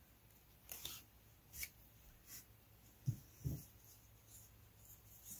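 Faint handling sounds of tablet weaving on an inkle loom: light scraping and rustling of the plastic weaving cards, a pencil and the warp threads. Two soft knocks come close together about three seconds in.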